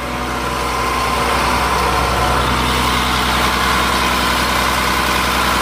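Caterpillar 3126 inline-six turbo diesel running steadily and smoothly, heard close up under the open hood, with a faint steady whine over the engine note.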